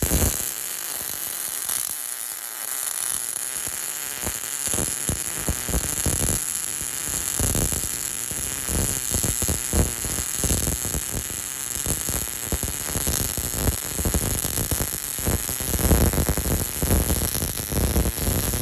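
MIG welding arc from a BestArc MIG145 welder running wire with shielding gas at about 120 amps on eighth-inch steel: a steady, dense crackle and sizzle that holds through the weld without a break.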